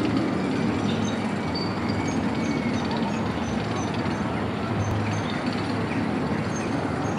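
Steady outdoor background noise, a broad rumble and hiss with a low hum, with faint high chirps repeating through the middle.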